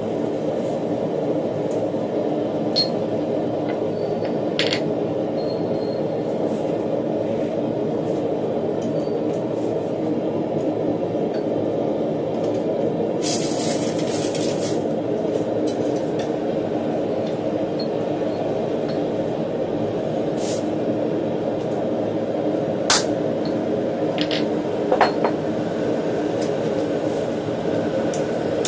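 Forge running with a steady roar, with scattered sharp metal clinks and taps over it, the sharpest about 23 and 25 seconds in, and a brief hiss about 13 seconds in.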